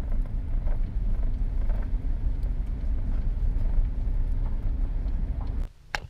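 Steady low rumble inside a car driving on a dirt road: tyre and engine noise heard in the cabin. It cuts off suddenly near the end.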